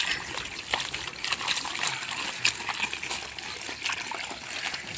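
Hands working wet clay in a shallow trough of muddy water: irregular small splashes and sloshes of the clay slurry.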